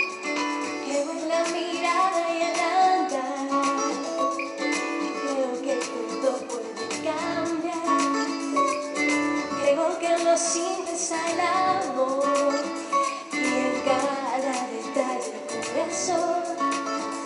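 A woman singing a pop song, accompanied by guitar.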